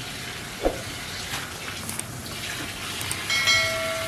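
Tap water running and splashing into a plastic tub as clothes are washed by hand. There is a single knock under a second in, and near the end a steady high tone sounds for about a second, the loudest thing here.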